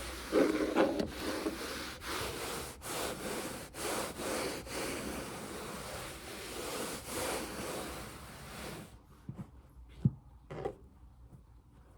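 ASMR hand sounds: hands rubbing and brushing close to the microphone in a continuous rustle with a few sharp clicks. The rubbing stops about three-quarters of the way in, leaving a few soft isolated taps.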